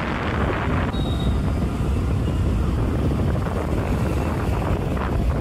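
Steady wind rush on the microphone over the low rumble of a moving vehicle on the road.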